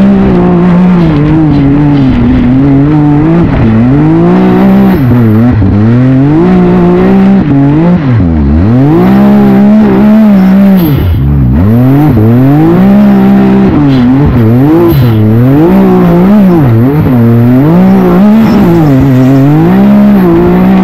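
Can-Am Maverick X3 side-by-side's three-cylinder engine at racing throttle, heard from the car itself: the revs swing up and down every second or two as the throttle is worked, dropping sharply off the throttle about eight and eleven seconds in.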